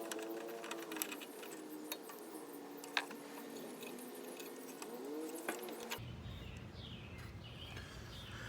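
Light metallic clicks and taps as carburetor parts and the choke cable are worked loose, over a faint tone that wavers in pitch. About six seconds in, the background changes abruptly to a low hum with birds chirping.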